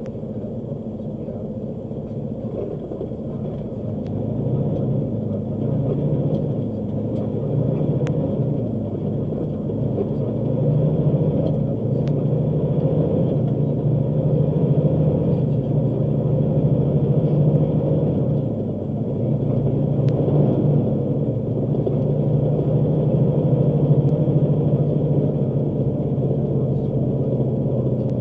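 Engine and road drone heard inside a vehicle's cab as it pulls away and drives on. It grows louder about four seconds in, with brief dips about ten and eighteen seconds in.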